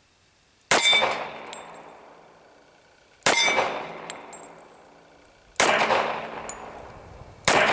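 Four shots from a Ruger SR1911 .45 ACP pistol, fired slowly about two to two and a half seconds apart, each with a long fading echo.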